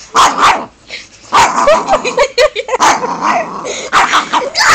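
Angry dog under bedsheets barking and growling in several loud bursts, with some wavering, higher-pitched snarling between them.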